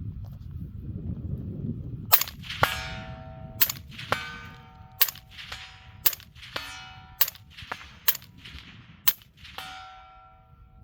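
About a dozen semi-automatic shots from an 11.5-inch AR-15 in .223 fitted with a Dead Air Nomad L, a 7.62 suppressor, fired at an uneven pace of roughly one a second starting about two seconds in. A metallic ringing lingers after the shots.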